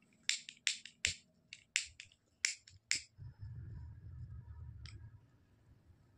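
Plastic disposable lighter being clicked about ten times in quick succession over the first three seconds, then a low rumble for about two seconds with one more click, as the lighter is held to nylon macrame cord to melt a cut end and fuse it back on.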